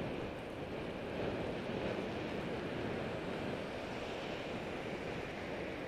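Steady rushing wind noise on the microphone of a camera carried on a moving bicycle.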